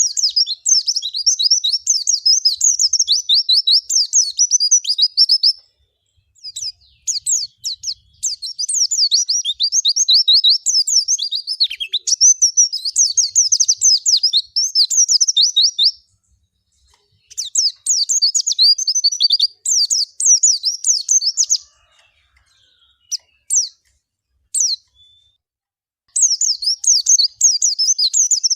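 White-eye (pleci, Zosterops) singing: loud, fast, high twittering phrases in long bouts of several seconds, broken by short pauses and a few single notes about two-thirds of the way through.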